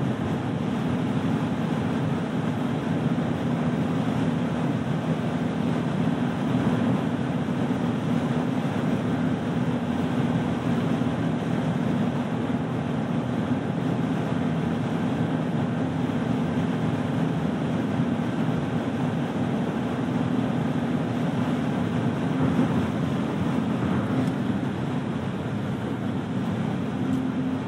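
Cabin noise of a 2015 Smart ForTwo (453) cruising flat out on the motorway at about 155 km/h, near its top speed. The 999 cc three-cylinder petrol engine holds a steady low drone under continuous wind and tyre noise.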